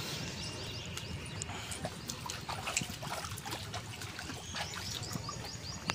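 Outdoor background with runs of short, high, falling chirps, scattered light taps and a low steady rumble.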